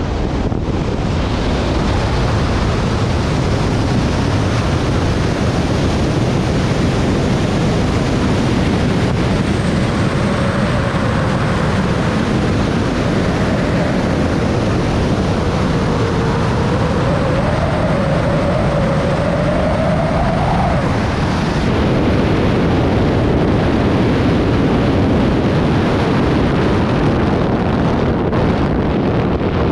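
Loud, steady rush of wind over a wingsuit BASE jumper's camera microphone in flight. A faint wavering whistle rides on top through the middle and cuts off abruptly.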